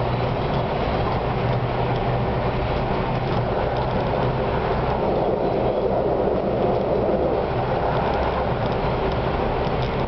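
Konstal 105Na tram running at top speed, heard from the driver's cab: a steady drone of motors and wheels rolling on the rails, a little fuller about halfway through.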